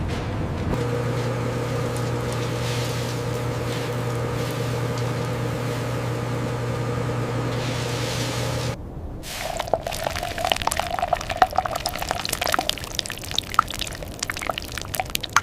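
Steady machine hum with a fixed low drone that cuts off suddenly about two-thirds of the way through. It gives way to a dense, irregular run of small clicks and rattles.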